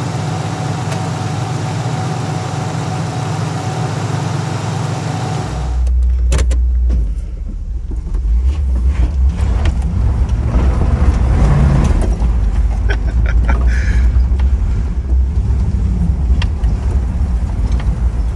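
A steady hum for about five seconds, then an abrupt change to the low rumble of the Pontiac Trans Am's 301 V8 heard from inside the cabin while driving, with scattered clicks and rattles.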